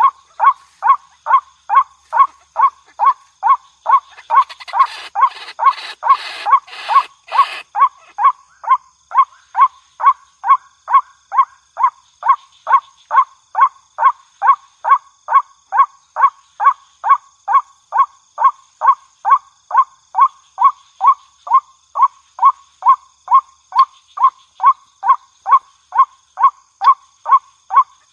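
White-breasted waterhen (ruak-ruak) lure recording: a short call note repeated about twice a second in an even, unbroken series.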